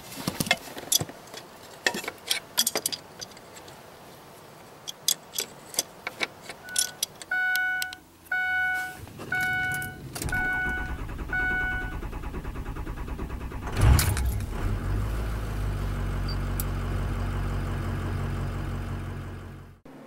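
Clicks and rattles of hand work and keys, then five electronic chime beeps, then the 6.0-litre Power Stroke V8 diesel of a 2006 Ford Super Duty cranks, fires about fourteen seconds in, and settles into a steady idle. The engine is now building injection control pressure after compressed air was blown through its high-pressure oil system, a no-start the owner puts down to a probably sticky IPR valve.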